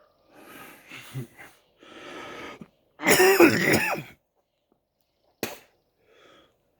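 A man wheezing and coughing: two rasping breaths, then a loud, wheezy cough lasting about a second, followed a second later by a single sharp click.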